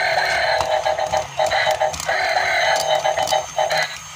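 Hulk dancing robot toy playing its buzzy electronic tune through its small built-in speaker in short chopped phrases, with sharp clicks through it as it walks.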